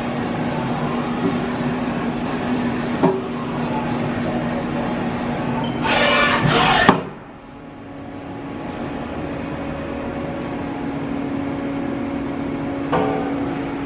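A Haas Super Mini Mill 2 CNC vertical machining center running with a steady hum. About six seconds in there is a louder, hissing, clattering burst lasting about a second, after which the sound drops off suddenly and the hum slowly builds back up. There is a short knock about three seconds in and another brief sound near the end.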